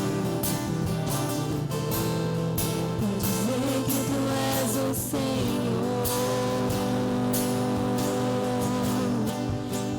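Live worship band playing a song: a singer's held, gliding notes over guitar, with regular percussion strokes.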